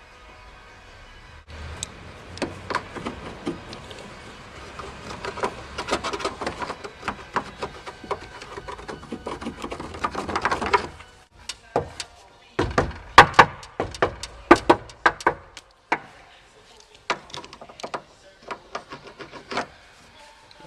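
Sound-deadening sheet being rubbed and pressed onto a car door's inner metal panel: a long crackly rubbing with many small clicks, then a run of sharp knocks against the door a little past the middle, followed by a few lighter taps.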